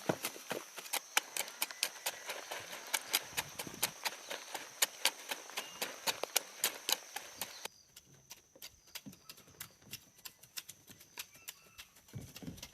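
Repeated sharp knocks, several a second, over a steady high-pitched whine. About eight seconds in they abruptly become quieter and sparser.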